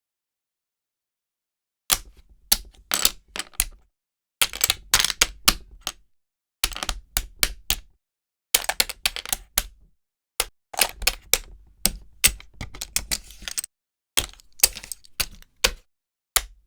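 Rummy tiles clicking together as they are gathered up and sorted, starting about two seconds in. The clicks come in rapid bursts a second or two long, with short pauses between.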